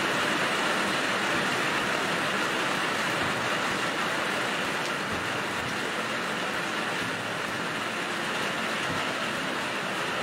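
Heavy rain falling steadily on wet pavement and puddles, an even hiss.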